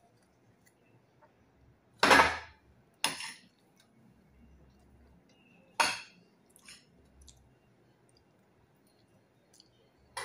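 Spoon and fork clinking and scraping against a plate while eating: three sharp strokes, the loudest about two seconds in, then a few fainter taps.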